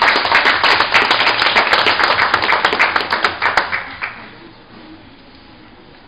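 Small crowd clapping, a dense patter of hand claps that dies away about four seconds in.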